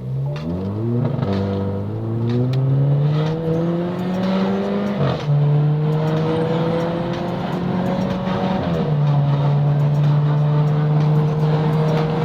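Volkswagen Golf Mk7 engine pulling hard under full acceleration, its pitch climbing through the revs and dropping sharply at three quick upshifts: about a second in, about five seconds in and about nine seconds in.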